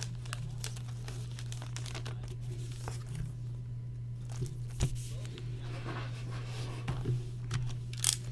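Crinkling and tearing of trading-card packaging, a card box and its packs being handled and opened, in scattered rustles and small clicks over a steady low hum.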